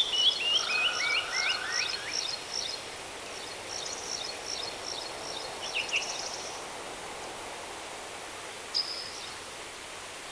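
Wild birds calling: a falling series of clear notes in the first two seconds, a few more chirps around the middle, and one short call near the end, over a steady background hiss.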